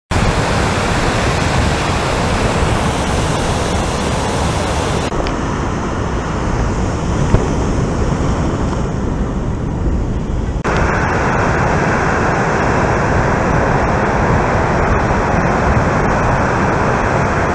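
Large breaking surf from a big winter swell: a steady, heavy roar of waves. The sound changes abruptly about five seconds in and again a little past halfway.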